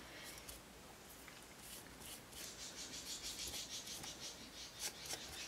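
Foam brush dabbing and wiping wet glue over paper letters on a wooden board, with fingertips pressing the letters down: faint, quick, repeated soft scratchy strokes that get busier about two seconds in.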